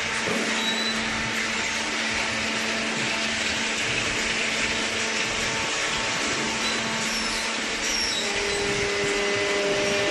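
Steady whirring drone of a hydraulic cardboard baling line's machinery running, with a faint higher hum joining near the end.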